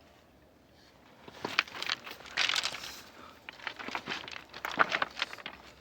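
Irregular rustling and crinkling with sharp clicks and knocks, in two spells: from about a second in, and again past the middle.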